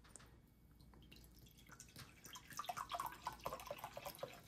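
Orange soda poured from a plastic bottle into a glass measuring cup of warm dissolved gelatin. From about two seconds in the liquid splashes and fizzes with a growing crackle as the carbonation froths up on the hot mixture.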